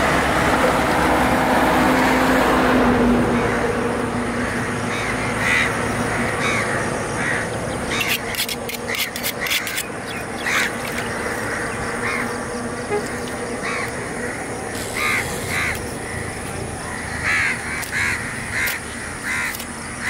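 Crows cawing in short, separate calls through most of the stretch, with a cluster of sharp clicks near the middle. A steady engine hum fills the first few seconds and then fades.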